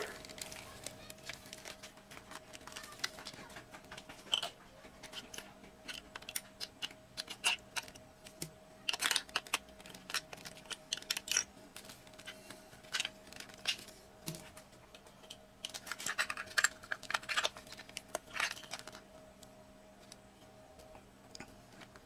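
Hard plastic clicking and rustling as a large Sentinel action figure is handled and its parts moved: irregular small clicks, busier about nine seconds in and again around sixteen seconds. A faint steady hum underneath.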